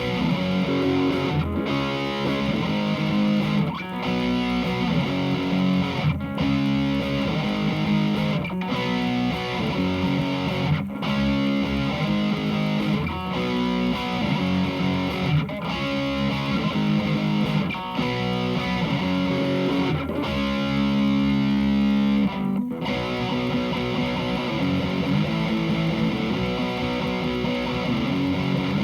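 Electric guitar played through a Hughes & Kettner Attax Metroverb 50-watt transistor amp on its overdrive (lead) channel: distorted chords, each held for about two seconds with a brief break before the next.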